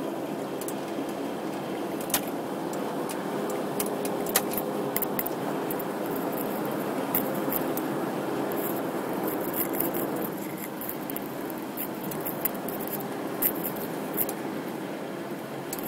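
Steady road and engine noise inside a moving car's cabin at highway speed, with scattered small clicks throughout.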